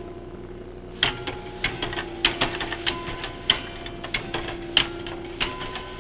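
Tower bells struck in quick, irregular succession, about two or three strikes a second after a pause of about a second. Each strike is a sharp hit followed by ringing tones that hang on underneath.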